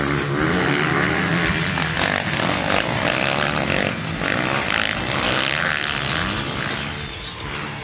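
Several motocross bikes racing, engines revving up and down in pitch as the riders throttle through turns, easing off a little near the end.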